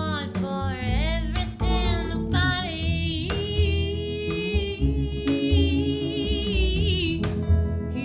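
A woman singing a slow song, accompanied by an upright double bass and a guitar. About three seconds in she holds one long note with vibrato.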